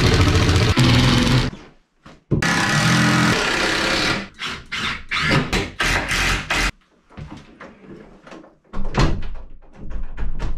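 Cordless drill/driver running in short bursts, driving screws into drywall and framing, its motor a steady whine. Later come a series of separate knocks and clicks as the door and its hardware are handled.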